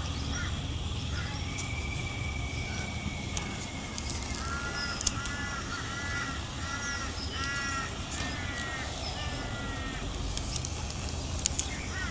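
A bird calling outdoors: a run of short, evenly spaced calls, about two a second, from about four to nine seconds in, over a steady background. Two sharp clicks come near the end.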